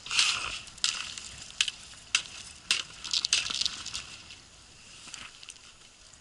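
Ice chisel striking and chipping through ice, a series of irregular sharp crunching blows with crackling ice shards, the strikes thinning out after about four seconds.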